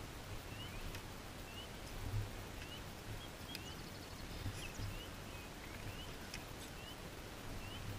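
A small bird calling, a short high rising chirp repeated about once a second, over a faint low outdoor rumble with a few light clicks.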